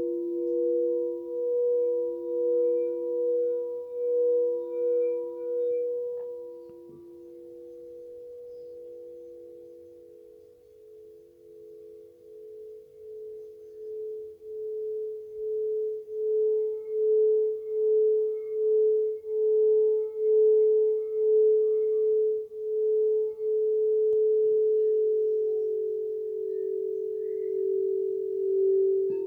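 Quartz crystal singing bowls sounding in long, pure, sustained tones with a slow pulsing wobble. Two bowls ring together at first and fade out about six seconds in. Another bowl then builds up gradually from about eleven seconds in and swells, and a second, slightly lower bowl joins near the end.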